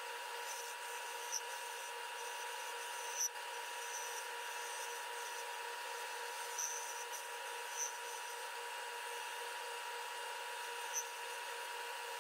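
Wood lathe running steadily while a turning tool cuts an African Blackwood bottle-stopper blank on a mandrel, with a handful of brief, louder cutting sounds as the tool bites.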